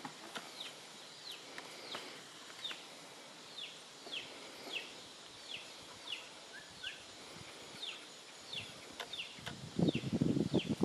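A bird repeating short, high, falling chirps about once or twice a second over quiet pasture background. About nine and a half seconds in, the mare's hooves start thudding on the grass as she trots off, louder than anything before.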